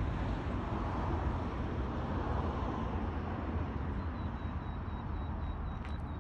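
Street traffic noise: a steady low rumble with tyre hiss from a passing car that swells in the first few seconds and then eases off.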